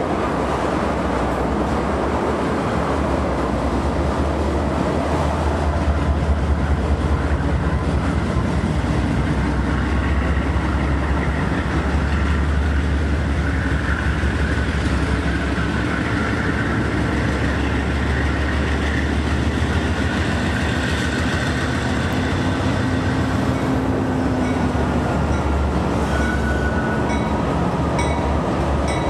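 A train rolling past at close range: a steady rumble of cars moving over the rails, with faint high wheel tones now and then.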